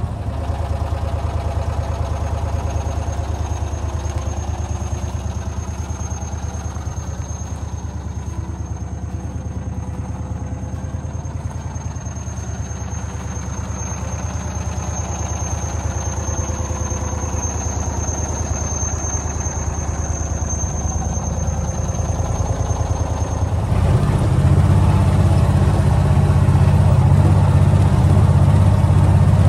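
A John Deere Gator XUV utility vehicle's engine running with a steady low drone, clearly louder from about three quarters of the way through. A thin, steady high whine sits over the first part and stops where the drone gets louder.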